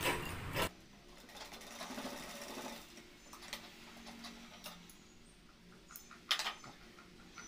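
Sewing machine stitching, stopping under a second in; then soft handling of the cloth with a few light clicks, and a short rustle about six seconds in.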